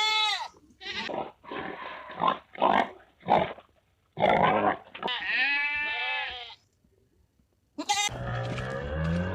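Goats bleating: several wavering, quavering bleats and shorter calls, then a brief pause. A different lower sound starts near the end.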